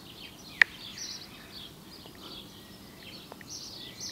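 Faint birdsong over quiet outdoor background noise, with one short sharp click about half a second in.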